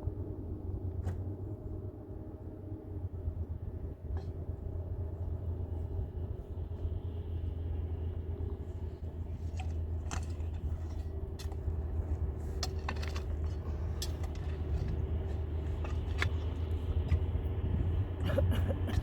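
A steady low rumble with scattered light clicks and knocks, the clicks coming more often in the second half.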